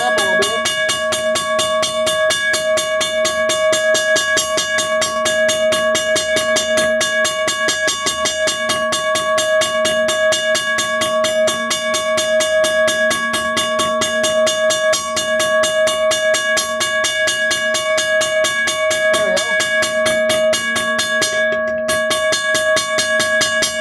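1982 first-generation Western Cullen Hayes mechanical railroad crossing bell ringing loud and steady, its hammer striking the gong in rapid, evenly spaced strokes over a sustained ringing tone. The bell is running at the faster striking speed it was adjusted to.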